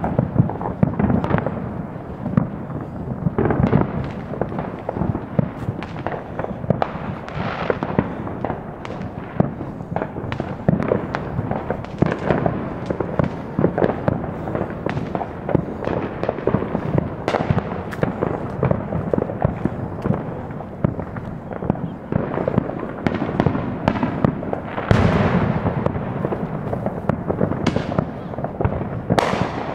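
Fireworks and firecrackers popping and banging without a break, many at once, with two louder bursts near the end.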